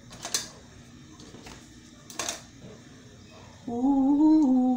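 A person humming a few held notes that step up and then down, starting near the end and louder than anything before it. Earlier, a couple of light taps.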